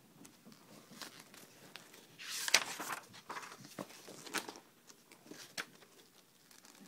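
Paper pages of a spiral-bound book being flipped, with a rustle about two and a half seconds in and a few light taps and clicks around it.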